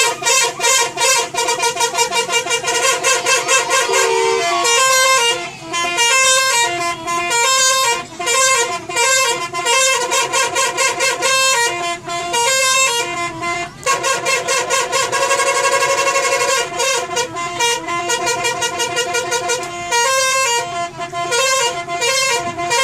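Telolet horn of a Handoyo bus: a multi-tone musical horn sounding a long run of fast, pulsing toots whose pitches change like a tune.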